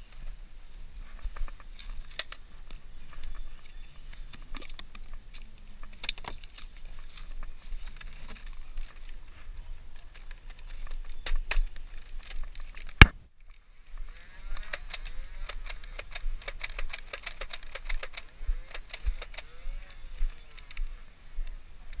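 Toy foam-dart blasters being handled and fired: scattered clicks and rattles, and one sharp loud crack about halfway through. After that comes a dense run of rapid clicking with short rising-and-falling whines.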